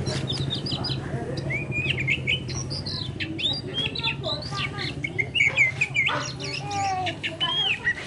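Oriental magpie-robin singing a fast, varied run of short whistles, chirps and squeaky notes, over a steady low hum that stops about seven seconds in.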